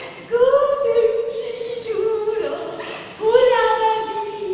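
A woman singing in two long, drawn-out phrases. One begins about a third of a second in and the other about three seconds in, each starting on a higher note and settling lower.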